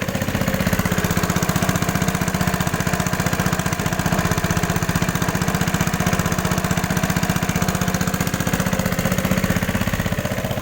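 A small engine chugging close by with a fast, even beat. It grows louder at the start, holds steady, then fades near the end, as if passing by.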